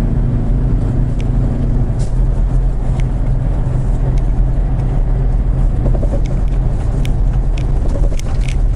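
Semi-truck diesel engine and road noise heard inside the cab while cruising on the highway, a steady low drone with a few light clicks.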